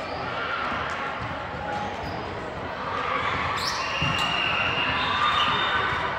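A ball bouncing on a hard indoor court floor, with short high shoe squeaks, mostly in the second half, over a murmur of voices echoing in the hall.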